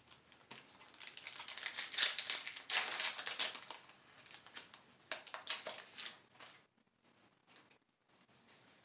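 Foil Yu-Gi-Oh! booster pack wrapper crinkling as it is torn open, loudest from about half a second to three and a half seconds in, with a few shorter crinkles around five to six seconds.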